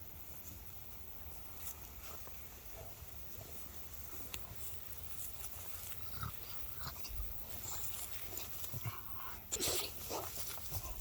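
French bulldog sneezing: faint, scattered short sounds, then one louder sneeze near the end.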